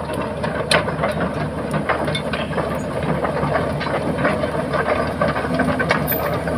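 Old excavator's diesel engine running steadily at work, with a hiss over it and scattered metallic clicks and knocks.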